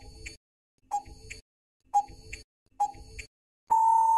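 Quiz countdown-timer sound effect: four ticks about a second apart, then a long steady beep near the end that marks time up.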